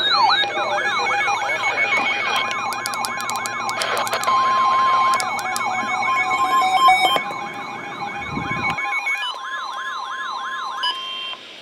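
Weather-radio and EAS alert receivers sounding before a warning broadcast: a siren-like alarm sweeping up and down about three times a second, joined about two seconds in by a steady alert tone. Both cut off just before the warning is read.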